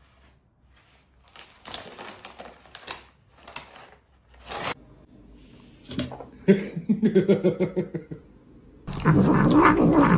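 A series of short rustling scrapes and a few clicks, then near the end a cat yowling loudly with a wavering pitch.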